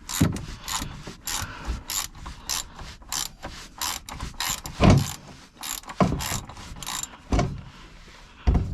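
Socket ratchet wrench clicking in quick runs as it is worked back and forth, loosening an oil drain plug, with a few duller knocks in between.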